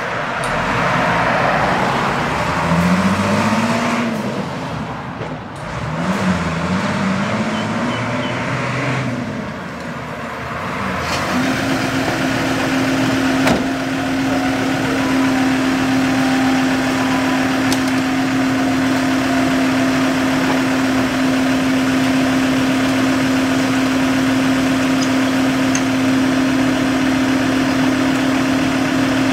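Fire tanker truck's engine revving as it pulls away, its pitch rising and falling through gear changes. After a sudden cut about eleven seconds in, a steady engine idle with one held hum tone, from a parked Ford Ranger fire command vehicle.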